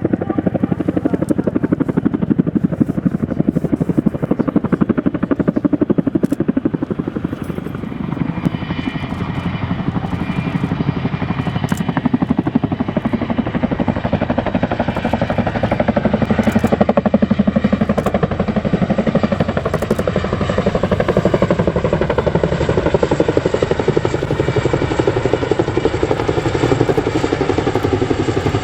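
CH-47J Chinook tandem-rotor helicopter flying past, its twin rotors beating in a rapid, even pulse over the whine of its turboshaft engines. The pitch of its tones drifts slowly as it moves.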